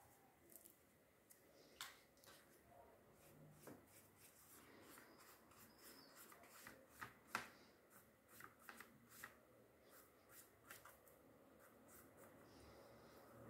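Near silence with faint, scattered small clicks and taps, busiest about seven to nine seconds in.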